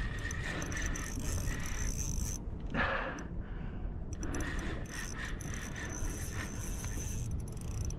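Fishing reel working under the load of a big fish on the line: a steady mechanical whir with clicking. It stops about two and a half seconds in, there is a short louder noise about three seconds in, and the whir resumes a second later.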